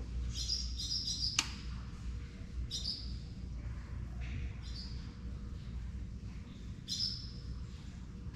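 Small bird chirping in short bouts every couple of seconds, over a steady low rumble. A single sharp click about a second and a half in is the loudest moment.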